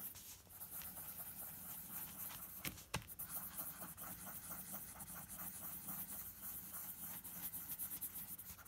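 Pencil scribbling on paper in quick, repeated back-and-forth strokes, drawing squiggly circles, several strokes a second. A single sharp tap about three seconds in.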